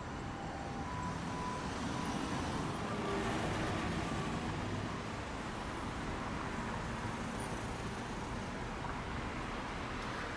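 Road traffic noise: a steady rush of engines and tyres that swells about three seconds in, with a faint two-note siren alternating in the first second or two.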